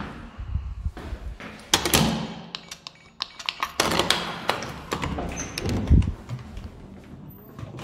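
Irregular knocks, thuds and sharp clicks, with heavier impacts about two, four and six seconds in, the loudest near six seconds.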